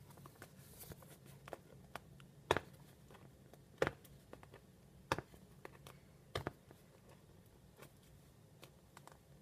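Hands working at a tightly taped cardboard box: scattered light clicks and scrapes, with four louder sharp knocks about a second and a quarter apart in the middle.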